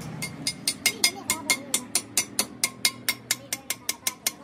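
Hammer tapping a steel drift to drive a roller bearing into its seat in a cast differential housing: rapid light metallic taps, about five a second, each with a short ring.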